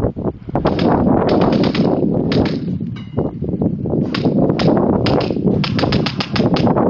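Airsoft guns firing in short rapid bursts of sharp snaps, several bursts in all, with the longest, fastest run near the end.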